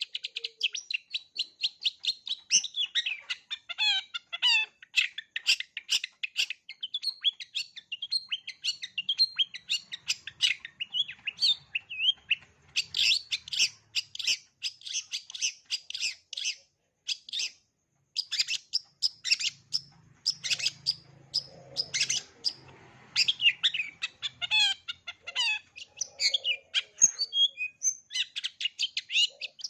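Long-tailed shrike (cendet) singing a fast, varied song of rapid chirps and trills packed with mimicked calls of other birds, with one short pause about eighteen seconds in.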